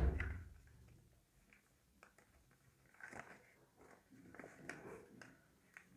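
A soft thump right at the start, then faint rustling and crinkling of a sheet of origami paper as it is lifted, creased and folded by hand, in two short spells a few seconds in.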